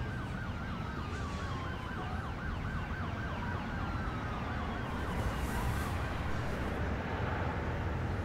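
Emergency vehicle siren in quick repeated sweeps, about three a second, its pitch slowly falling as it fades out about six seconds in, over a steady low traffic rumble.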